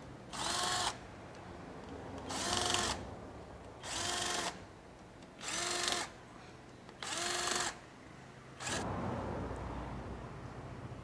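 Electric drill-driver whirring in five short bursts about a second and a half apart, each with a rising whine, as the clutch cover bolts of a Suzuki Gixxer engine are backed out. A click follows near the end.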